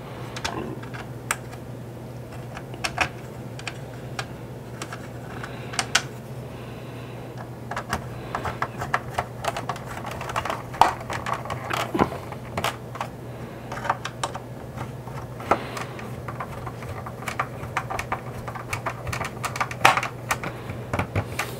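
Hand screwdriver turning screws into the plastic hull of a 1983 GI Joe Skystriker toy jet: many small irregular clicks and ticks of the bit and the plastic, coming thicker from about eight seconds in.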